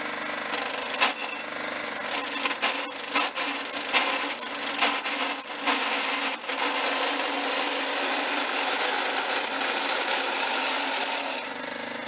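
John Deere STX30 riding mower's engine running steadily under a harsh grinding, rasping noise from its bad transmission as the mower is driven. Irregular knocks and clunks come in the first half. The grinding then goes on evenly and stops shortly before the end, leaving the engine running.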